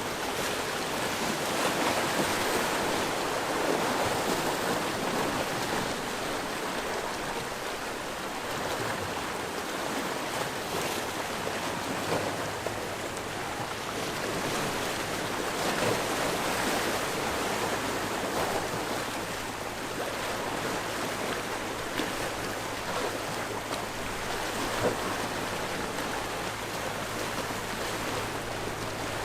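Sea waves washing and surging against the shore in a steady wash that swells and eases every several seconds. A faint low steady hum joins about a third of the way in.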